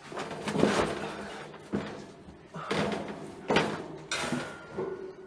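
A series of knocks and bumps, about five in five seconds, as things are handled and shifted while someone rummages for a drink; a short thin ringing tone comes in near the end.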